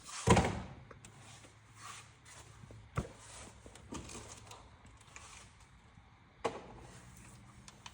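A heavy thump just after the start, then a sharp knock about three seconds in and another about six and a half seconds in, with small clicks between: tools and parts being handled during engine repair work.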